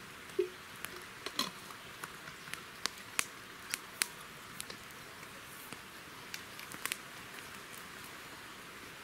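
Wood campfire crackling: sharp, irregular pops over a steady hiss, with a kettle hanging over the flames coming to the boil.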